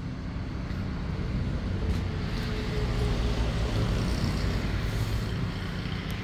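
Road traffic: a vehicle passing on the road, its sound swelling about two seconds in and easing near the end, over a steady low rumble.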